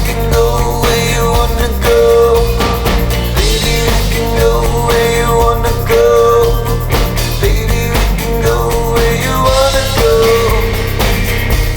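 Rock band playing an instrumental passage: drums, bass and guitars, with a sustained lead line on top.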